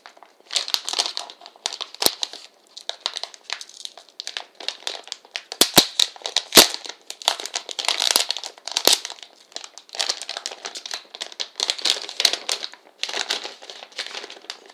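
Plastic packaging of an Apple VGA adapter crinkling and rustling as it is opened by hand, with a few sharp clicks and snaps along the way.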